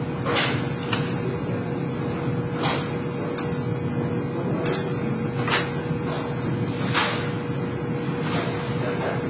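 Aviation snips notching sheet-metal duct elbow pieces, giving sharp metallic clicks at irregular intervals, with the thin metal pieces clattering as they are handled and laid on the wooden bench. A steady shop hum with one constant tone runs underneath.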